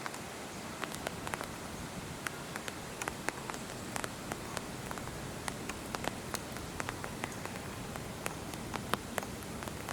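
Steady rain hiss with many irregular, sharp ticks of drops hitting a nearby surface.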